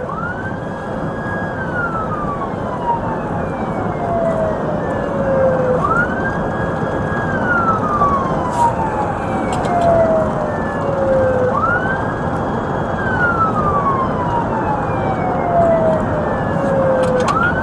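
Police siren sounding a slow wail: each cycle rises quickly, holds for about a second, then falls slowly, repeating about every six seconds, over steady background noise.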